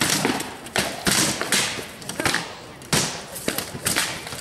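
Rattan swords striking shields and armour in a fast exchange of blows during armoured combat: about eight sharp cracks and thuds, irregularly spaced.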